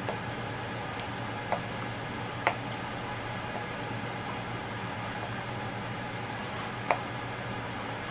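Kitchen knife cutting a red pepper: three sharp taps of the blade on the board, spread over several seconds, over a steady background hum.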